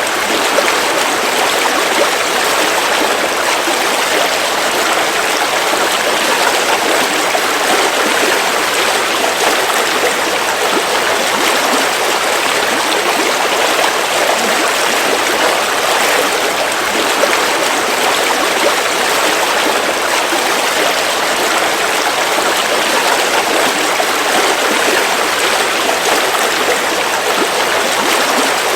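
River water flowing and rushing over rocks, a steady, even rush.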